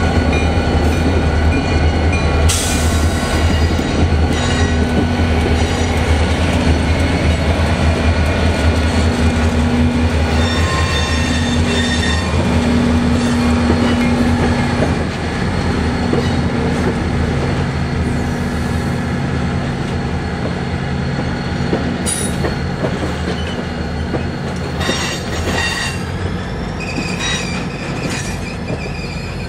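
EMD GP40-2 diesel locomotives running as they pass and pull away, their low engine hum easing about halfway through, followed by passenger coaches rolling by with thin, high wheel squeal and a few clicks. The squeal grows more prominent near the end.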